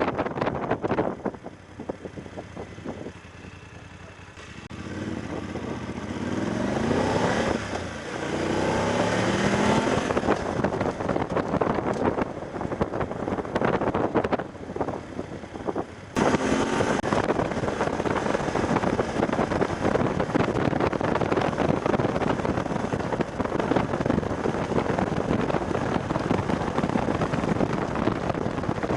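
BMW F750GS parallel-twin engine pulling away from low speed, its pitch rising several times as it shifts up through the gears, with heavy wind noise on the microphone from riding speed.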